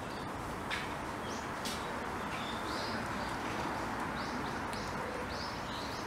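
A small bird chirping: a string of short, high notes, sparse at first and coming faster near the end, over a steady low background hum.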